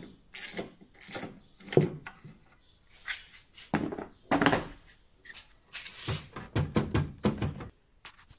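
Ratchet wrench clicking through its last couple of strokes on a BMW F30 tail-light mounting nut, then a run of plastic knocks, clicks and thunks as the tools and tail-light housing are handled. The loudest thunk comes about two seconds in.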